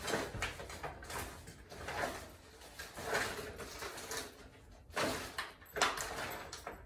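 Rummaging: things being handled and moved about, an irregular series of rustles and knocks with the sharpest knocks about five and six seconds in.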